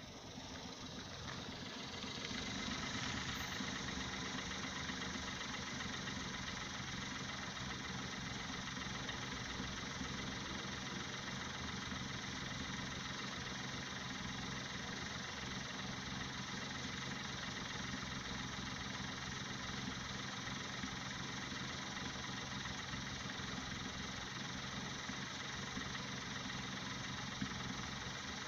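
An engine running steadily at idle, swelling over the first couple of seconds and then holding even.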